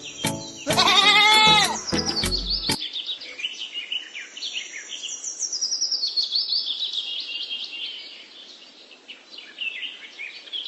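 A loud bleat with a wavering pitch over music, cut off sharply about three seconds in, followed by birds chirping in quick, high calls that fade near the end.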